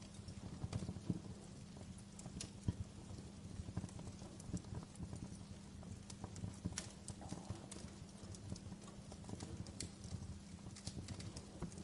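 Wood fire crackling: irregular sharp pops and snaps over a low, steady rumble of burning logs.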